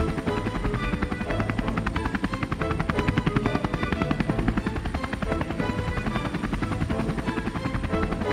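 Helicopter rotor chopping in a fast, steady rhythm, with music playing along.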